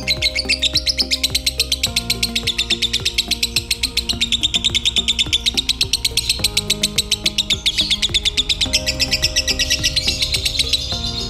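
Lovebird singing a long, unbroken 'konslet' chatter: a very fast run of evenly spaced high chirps, several a second, whose pitch drifts slowly up and down. This is the rapid, buzzing non-stop song that keepers prize in this style. Background music with sustained chords plays underneath.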